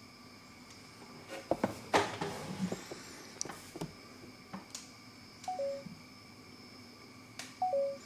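Two short electronic beeps, each a higher note dropping to a lower one, about five and a half and seven and a half seconds in. Between them come a few light knocks and taps as the cardboard router box is handled.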